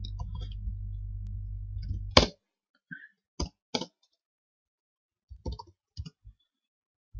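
Scattered keystrokes on a computer keyboard, a few separate sharp clicks with pauses between them. A low steady hum runs under the first two seconds and cuts off suddenly.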